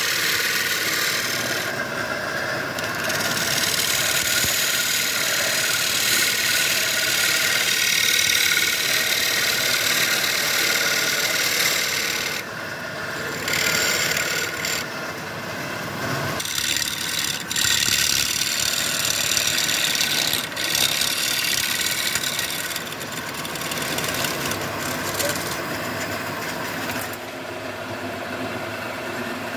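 Wood lathe running while a flat scraper cuts the face of a spinning wooden tray: a steady hissing scrape of steel on wood, broken by several short pauses when the tool eases off. Near the end the cutting dies down and it gets quieter.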